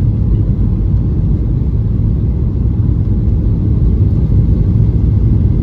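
Steady low rumble inside the cabin of a Boeing 737-800 airliner during landing: engine and airflow noise, heard from an economy seat.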